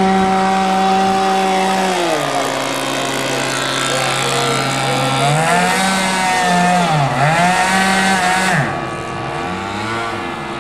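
Twin engines of a radio-controlled model seaplane buzzing loudly in flight. The steady pitch drops about two seconds in, wavers up and down from about five seconds in, and the sound gets quieter near the end as the plane climbs away.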